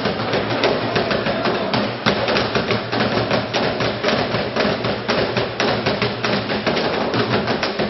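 Fast, steady drumming with sticks on barrel drums: a run of sharp hits, several a second.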